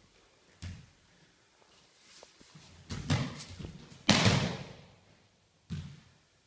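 A few thuds of bodies and feet on tatami mats as an aikido partner is thrown in kotegaeshi, the loudest a breakfall onto the mat about four seconds in, echoing in the hall. A last softer thud comes near the end.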